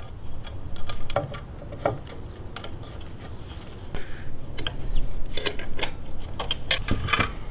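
Bolts being fitted and tightened to fasten a pool pump seal plate onto the motor: scattered small metal clicks and taps, with quicker runs of clicks in the second half.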